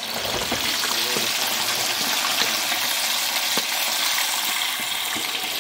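Pieces of striped bass deep-frying in a pan of hot oil: a loud, dense sizzle and bubbling that surges at the start as a piece is lowered into the oil with tongs.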